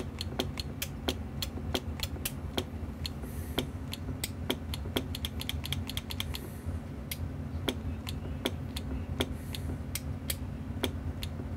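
The relay in a Gray 300 CB linear amplifier clicks in and out again and again, about three times a second, over a steady low hum, while the sideband delay is tested. The relay is not holding in: the freshly rebuilt sideband delay switch doesn't want to work.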